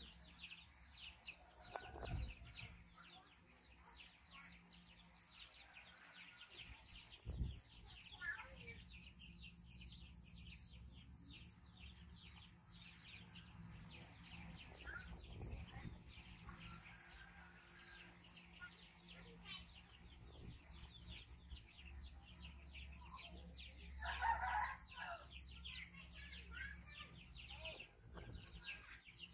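Faint background of chickens clucking and birds chirping rapidly and without a break, with a rooster crowing near the end.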